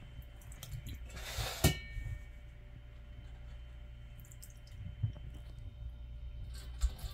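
Kitchen handling sounds: a short rushing noise about a second in that ends in a ringing clink of a dish, then a few light clicks and taps, over a low steady hum.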